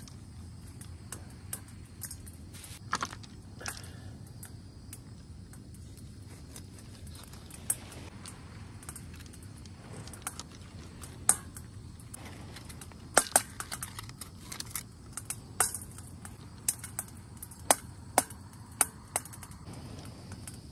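Stones popping and cracking as they heat inside an improvised pot-and-bowl oven on a camping gas stove: irregular sharp pops, sometimes two or three close together, over a steady low rumble. The popping is the sign that the oven is hot enough to bake.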